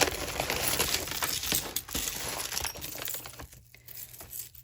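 Pieces of costume jewelry clinking and jangling together as they are handled and sorted: a dense run of light metallic clinks for about three seconds, then a few scattered ones.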